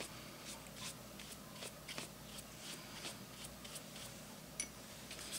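Faint, short strokes of a wet paintbrush flicking upward across journal paper, about two a second, working in water-soluble crayon colour. A small sharp click near the end.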